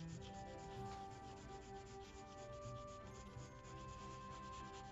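Colour pencil shading on paper: quick, even back-and-forth strokes rubbing faintly, over soft background music.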